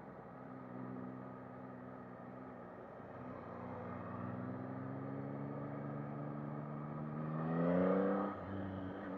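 Yamaha MT-09 SP's three-cylinder engine under way, holding a steady note and then pulling with a slowly rising pitch from about three seconds in. It grows loudest just before the end, where the revs fall away sharply.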